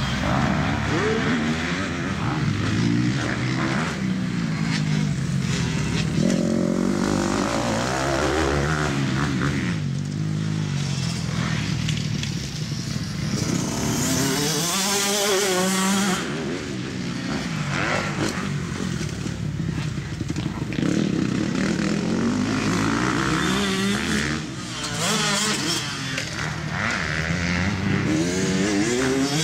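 Motocross bike engine revving up and dropping back again and again as it accelerates, shifts and slows around a dirt track. About halfway through, a brief hiss comes in with the engine.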